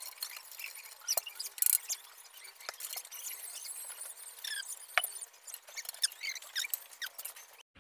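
Aluminum door-frame profiles and small fittings being handled and fitted together by hand: irregular light clicks and taps with a few short squeaks as metal rubs on metal. The sound cuts off abruptly just before the end.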